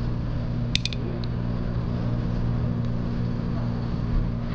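A steady low electrical-sounding hum, with three quick light clinks of a spoon against a small dish about a second in.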